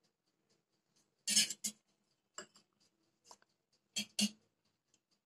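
A wire whisk clinking and scraping against a stainless steel bowl as raw eggs are beaten: a handful of short, sharp strokes at uneven intervals.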